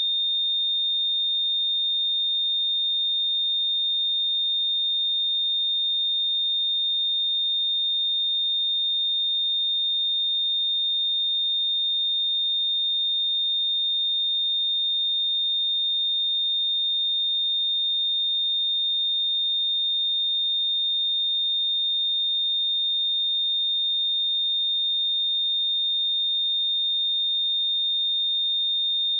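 Pure 3647 Hz sine-wave test tone, a single high-pitched steady whistle held at constant level without change.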